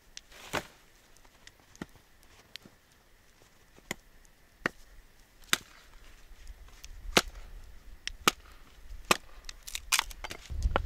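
Dry wood being broken up for stove kindling: sharp wooden cracks, about one a second, getting louder toward the end.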